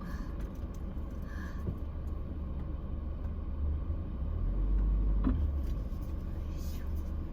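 Car running, a steady low rumble from the engine and road that grows louder for a second or so just past the middle, with a few light clicks.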